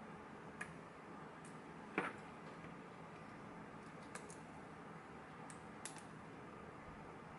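A few faint, scattered metallic clicks and taps from a lock being worked with picking tools, the loudest about two seconds in, over a low steady room hiss.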